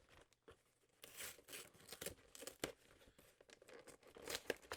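Faint, irregular tearing, crinkling and scraping as a trading-card box's cardboard and plastic wrap are cut open with a knife, with a stubborn box putting up resistance.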